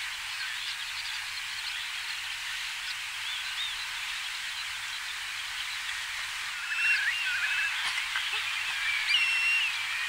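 Many small bird calls overlapping in a steady chatter. About seven seconds in, clearer whistled calls and a short trill join in, slightly louder.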